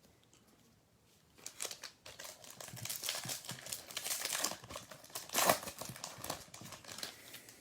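Plastic-foil trading-card pack wrapper being torn open and crumpled, a run of dense crackling that starts about a second and a half in and peaks with a sharp crinkle a little past five seconds.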